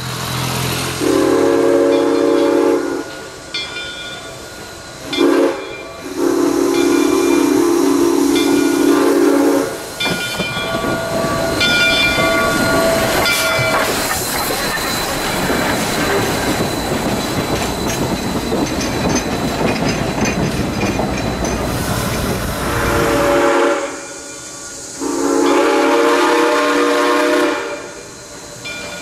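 Chinese SY-class steam locomotive sounding its steam whistle in long blasts with a short one between. Then the locomotive and its coaches pass close by with a steady noisy rush of exhaust and wheels clattering on the rail joints. Near the end the whistle blows again, a short blast and then a long one.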